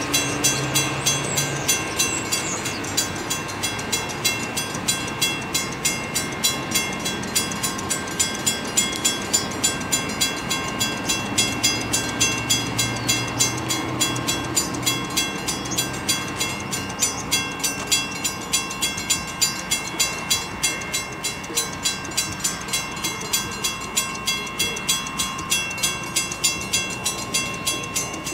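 Railroad grade-crossing warning bell ringing steadily at about three strikes a second, signalling an approaching train. A low rumble rises and fades in the middle.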